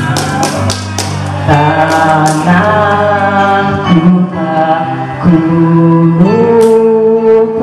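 A young man singing solo into a handheld microphone, holding long drawn-out notes that bend and glide between pitches with no clear words.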